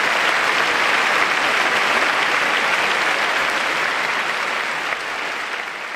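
A large audience applauding, a dense, even clapping that starts to fade away near the end.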